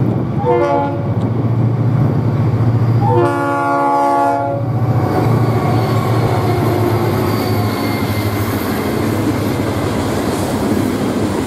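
Diesel freight train locomotive horn sounding two blasts, a short one and then a longer one, followed by the steady rumble and wheel clatter of the freight cars rolling past close by.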